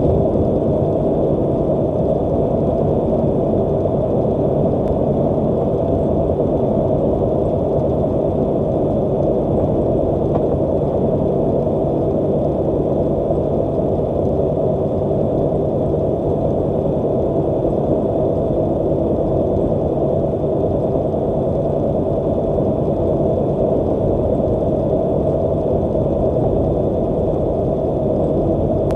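Steady drone inside a truck's cab cruising at highway speed: engine and road noise with a few constant hums through it, unchanging throughout.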